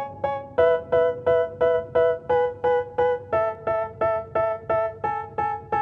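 Background music: an instrumental break in a rap song, a piano-like keyboard playing the same chord over and over, about three strikes a second, with the chord changing every second or so.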